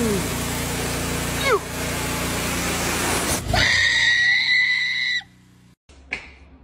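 Loud, steady hiss of a water sprinkler's spray with a low hum underneath, crossed by a short high-pitched cry falling in pitch at the start and another brief one about a second and a half in. About three and a half seconds in, the hiss gives way to a steady high whistle-like tone that lasts about a second and a half, then the sound cuts off.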